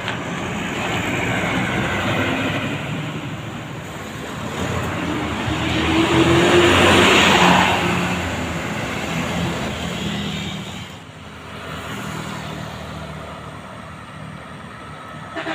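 Road traffic passing by. One vehicle's engine and tyre noise swells to a peak and fades away about six to eight seconds in, after a smaller pass-by near the start.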